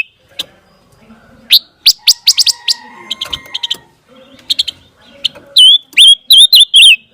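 A panca warna songbird calling in loud bursts. Quick sharp chirps come first, then a run of clear swooping whistled notes near the end, some of them very loud.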